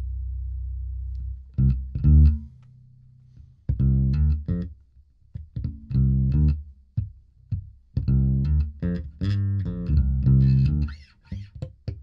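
Electric bass played through a small 100-watt hybrid bass combo amp with a 10-inch speaker and a tweeter, miked in the room. A held low note stops just over a second in, then short plucked notes follow in quick phrases after a brief pause.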